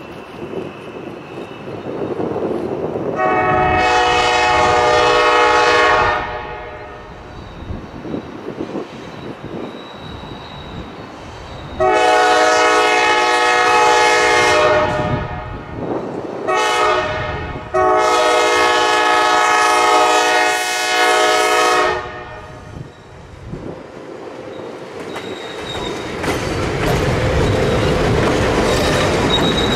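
ALCo RS11 diesel locomotive's air horn sounding the grade-crossing signal: long, long, short, long. Then the locomotive's V12 diesel engine and wheels on the rails grow louder as it passes close by.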